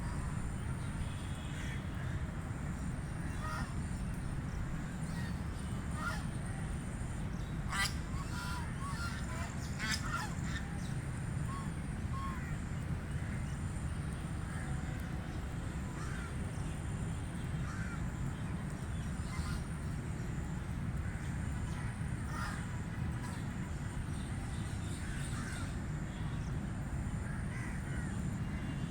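White Pekin ducks quacking now and then in short, scattered calls over a steady low rumble, with a few sharp clicks partway through.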